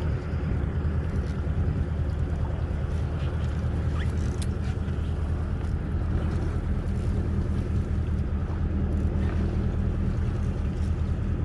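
Fishing boat's engine idling with a steady low hum, with a few faint ticks about four seconds in.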